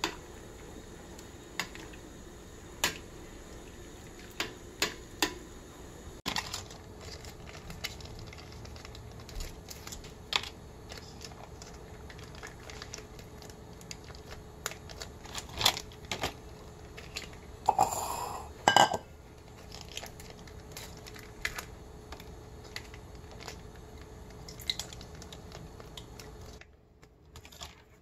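Scattered clinks and knocks of chopsticks and utensils against a stainless steel pot and dishes, over a faint steady hum. A brief, louder rustle comes about two-thirds of the way through.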